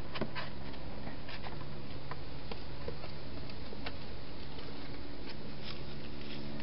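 A wild hedgehog eating and moving about in a clear plastic feeding box: scattered small clicks and crackles, several close together about a quarter of a second in, then spaced out. Under them runs a steady hiss with a low hum.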